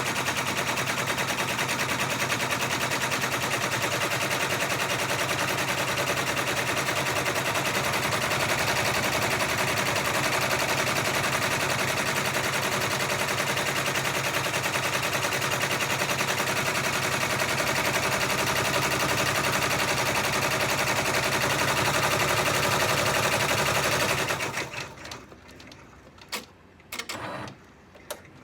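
Baby Lock six-needle embroidery machine stitching out a monogram at speed: a fast, steady chatter of needle strokes that stops near the end, followed by a few short clicks.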